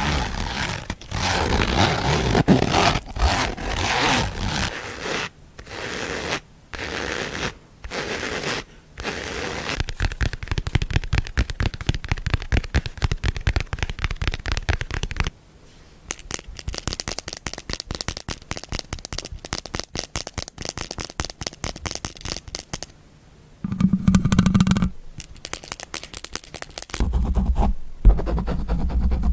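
Close-miked ASMR trigger sounds: scraping and scratching on objects. Separate strokes with short pauses give way to several seconds of fast, dense scratching, then to shorter, heavier scrapes near the end.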